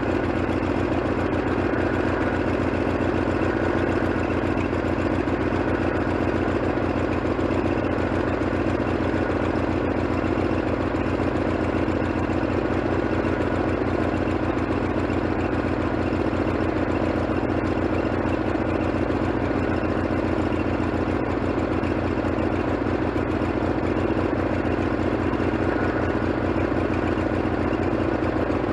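Wood-Mizer LT40HD sawmill engine idling steadily on a temporary fuel tank, with an even pulsing and no change in speed.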